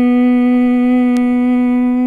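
A woman's long, steady humming 'mmm' held on one note through the out-breath: the bee-like hum of Bhramari pranayama.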